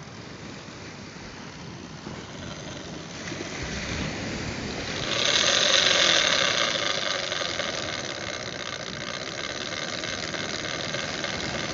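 Large lever-drag game reel's ratchet clicker buzzing steadily as a hooked shark pulls line off the spool. It builds, is loudest about five seconds in, then eases slightly and keeps going.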